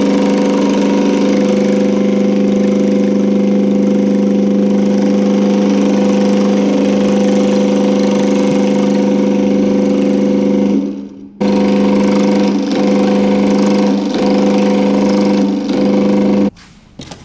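Power hammer running steadily at an even pitch while a sheet-metal fin half is worked between its dies to shape the edge. It stops briefly about eleven seconds in, starts again, and stops shortly before the end.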